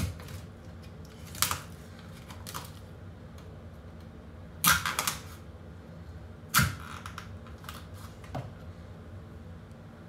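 Knife point stabbing and cracking through a raw lobster's hard shell onto a wooden chopping board: a handful of sharp knocks and cracks, with a quick run of three or four about halfway through.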